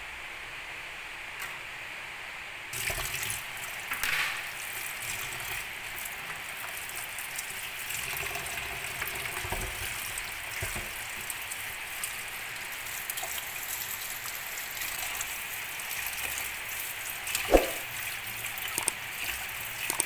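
Kitchen tap running into a plastic basin in a stainless steel sink while lettuce leaves are rinsed under the stream. The water starts about three seconds in, and there is a single knock near the end.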